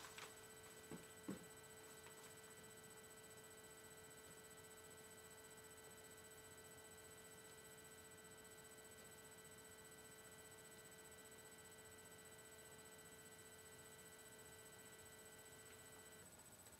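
Near silence with a faint steady hum of several tones, most of which stop shortly before the end. A few soft knocks fall in the first second and a half.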